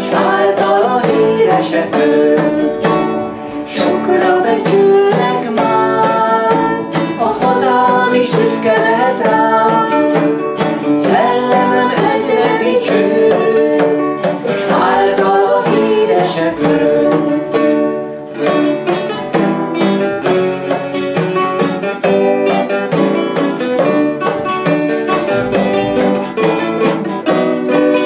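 Ensemble music on lute and classical guitar, both plucked, with a frame drum struck by hand to keep the beat. The playing is continuous and has a steady pulse.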